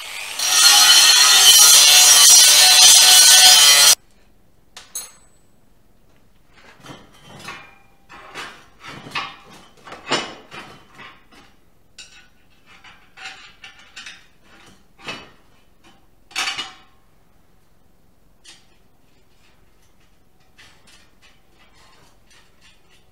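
An electric power tool spins up and runs loudly against a steel pipe clamped in a vise, then cuts off abruptly about four seconds in. After it come scattered metal clinks and knocks as steel pipe and angle iron are handled on the workbench, growing sparse toward the end.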